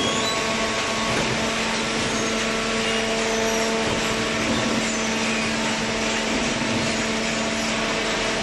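Hydraulic vertical cardboard baler running, a steady mechanical hum over constant machine noise.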